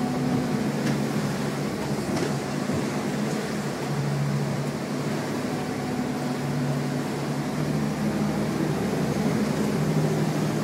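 Boat engine running steadily, a low drone with a hum that swells and fades every few seconds.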